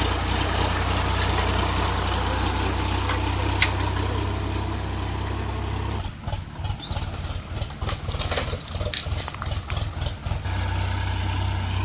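Tractor diesel engine running steadily, its low rumble breaking up unevenly for a few seconds in the middle before settling again.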